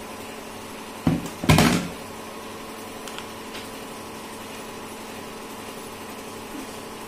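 Two dull thumps about a second in, the second a little longer, over a steady low hum.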